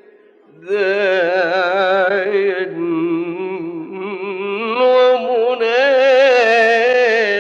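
Unaccompanied male voice singing a long, ornamented melisma in an Islamic ibtihal, holding and bending sustained notes with a wide vibrato. It comes in about a second in after a brief breath-like pause.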